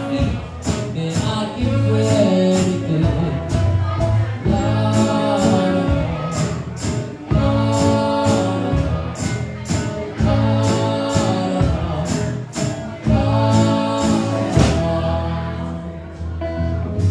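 A live band playing a song: a man sings lead over strummed acoustic guitar and drums keeping a steady beat.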